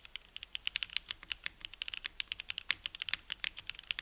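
Typing on a QK Cub65 aluminium 65% keyboard fitted with lubed Namazu switches and built without foam: a quick, even run of keystrokes, about ten a second.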